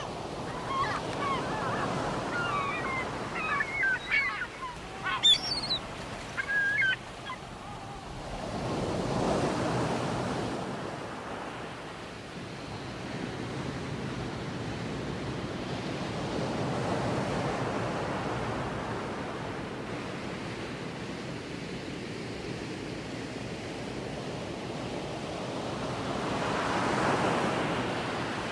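Sea waves washing in slow swells several seconds apart, with a scatter of bird calls over roughly the first seven seconds.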